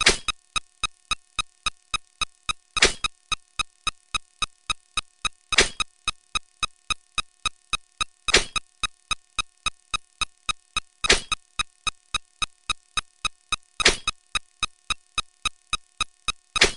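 Rapid, even train of short electronic click sound effects, about three and a half a second, with a louder, longer hit about every three seconds.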